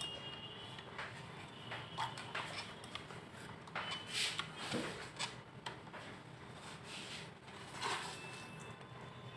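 Faint handling sounds: scattered light clicks and brief scrapes as a computer power supply's circuit board and its large capacitors are moved about inside the sheet-metal case.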